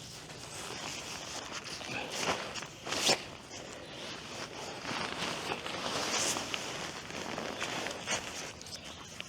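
Nylon tent fabric rustling and crinkling as the collapsed tent is rolled up, with scattered sharper crackles, the loudest about three seconds in.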